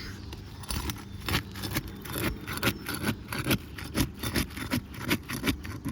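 Brittle asphalt shingles being pried and scraped loose from their sealed courses, with irregular cracks and scrapes about two or three times a second. The shingles are tearing rather than releasing cleanly.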